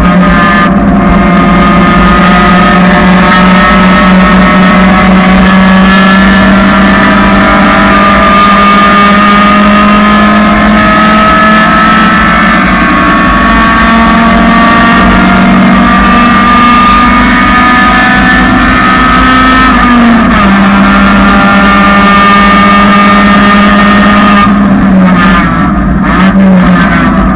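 1999 Honda Civic's four-cylinder engine running hard at high revs, loud, its pitch climbing slowly for about twenty seconds. It dips briefly, then eases off near the end.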